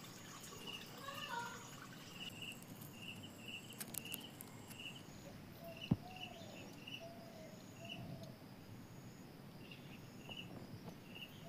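Faint outdoor animal calls: a short high chirp repeating about twice a second, and a few lower rising-and-falling calls in the middle. One sharp tap about six seconds in.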